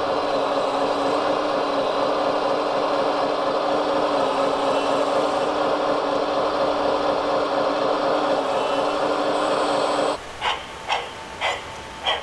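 RC hydraulic excavator's pump motor running with a steady whine while its bucket tips sand into a model tipper truck. It cuts off suddenly near the end, and four short sharp sounds follow about half a second apart.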